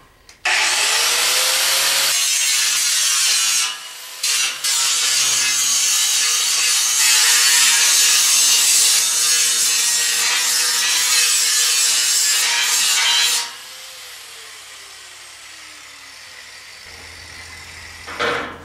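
Angle grinder spinning up and grinding steel, cutting away edges and spot welds on a metal gate, for about thirteen seconds with a brief break about four seconds in. It then lifts off and the motor winds down with a falling whine.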